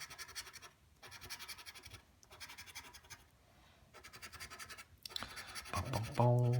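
A scratch-off lottery ticket being scratched in short runs of strokes, with brief pauses between them.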